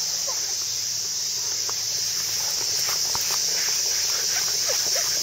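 Summer cicadas in the surrounding trees making a steady, high-pitched drone.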